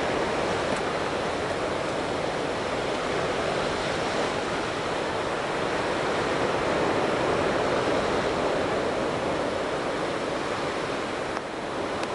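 Ocean surf breaking on a sandy beach: a steady wash of noise with gentle swells.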